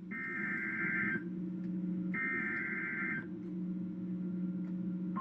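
NOAA Weather Radio SAME (Specific Area Message Encoding) alert header: two raspy digital data bursts about a second long each, a second apart, over a low steady hum. The header is the coded signal that a new warning is about to be broadcast.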